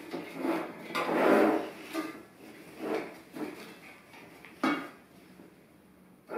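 Flower stems rustling and scraping as they are pushed into a galvanized metal jug. The handling comes in a series of short, uneven bursts, the loudest about a second in, with a sharp click just before the five-second mark.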